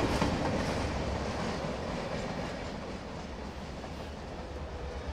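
Cartoon train sound effect: an engine pulling a loaded wagon along the track, a steady low rumble of wheels on rails that slowly fades.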